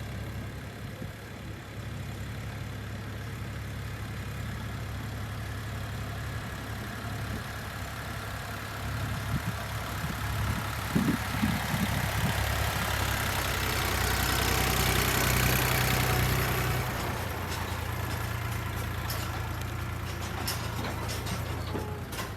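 Farm tractor engine running steadily with a low hum. It gets louder about two-thirds of the way through, then eases back.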